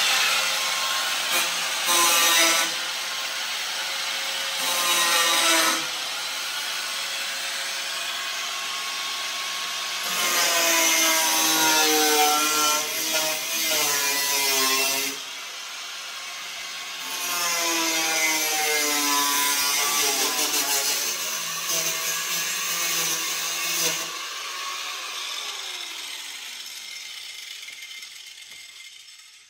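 Corded angle grinder with a cut-off wheel slicing through the sheet-metal rear quarter panel around a car's wheel arch, its pitch wavering as the disc bites and frees. It eases off briefly about halfway, then runs again. About five seconds before the end it is switched off and spins down.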